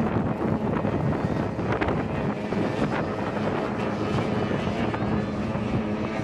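Outboard engines of tunnel-hull racing powerboats running at speed across the water, a steady engine drone with wind buffeting the microphone.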